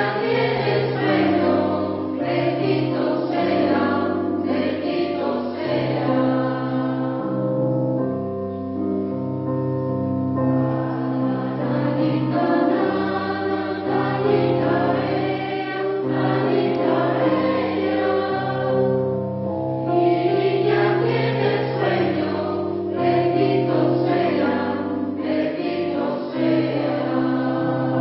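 Polyphonic mixed choir singing, several voice parts holding and moving through sustained chords.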